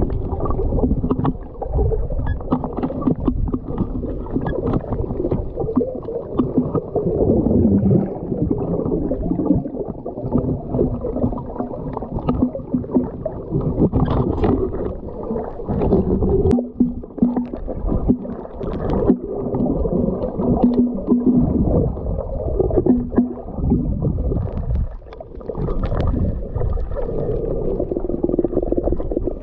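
Muffled underwater noise picked up by a submerged camera in its housing: a continuous low wash of sound with scattered knocks, and a faint low hum that comes and goes.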